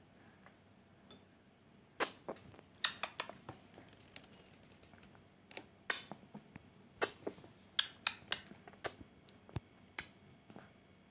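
Baby eating puree from a plastic spoon: irregular, sharp wet clicks and smacks, about fifteen in small clusters with pauses between.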